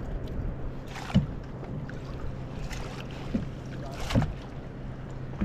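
Water splashing and lapping against a kayak's hull, with a few short knocks, over a steady low hum.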